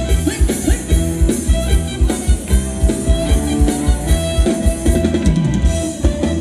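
Live Thai dance band playing upbeat ramwong dance music, the drum kit's bass drum keeping a steady, fast beat under held melody notes.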